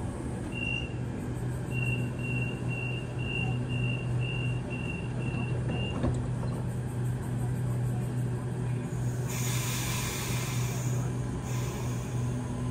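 Double-deck suburban train's door-closing warning: a single beep, then quick beeping about three times a second as the sliding doors close, ending with a thud as they shut about six seconds in. Under it runs the steady hum of the standing train, and near the end come two bursts of hissing air, the first about two seconds long.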